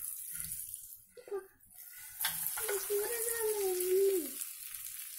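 Hot oily tempering being scraped with a spoon out of an aluminium kadai onto cooked rice: a hissing scrape with a few sharp clicks of metal on metal. Over the middle runs a drawn-out wavering tone lasting about two seconds.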